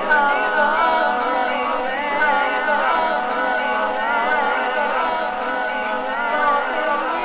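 Several layered singing voices in a choir-like a cappella texture, with pitches that glide and waver and run on without a break.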